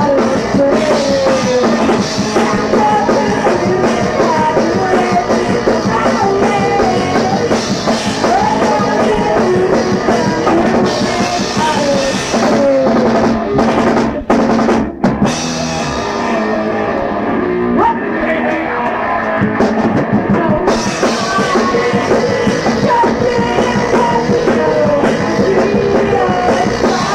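A rock band playing a song in a practice recording, with a drum kit, electric guitar and bass. The sound drops out for a moment twice about fourteen and fifteen seconds in, then sounds duller for a few seconds before the full band returns.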